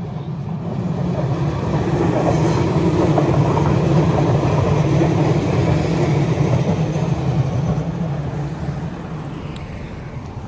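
A red regional passenger train passing on its track, the sound of its wheels on the rails swelling to a peak a few seconds in and then slowly fading as it moves away.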